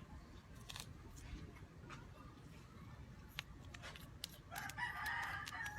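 Faint clicks and knocks of a small tactical flashlight being handled and unscrewed to get at its battery. A drawn-out pitched call comes in over roughly the last second.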